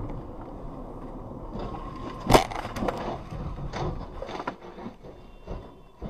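Steady tyre and road noise inside a moving car, then a loud crash about two seconds in as a car ahead collides and flips over. Several smaller knocks and scrapes follow as it tumbles onto its roof against the barrier.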